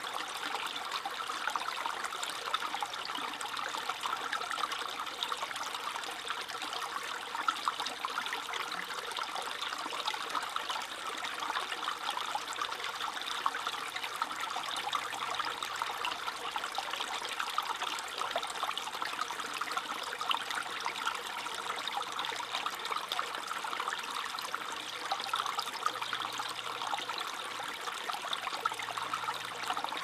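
Shallow brook babbling over pebbles and stones: a steady trickling and gurgling of running water.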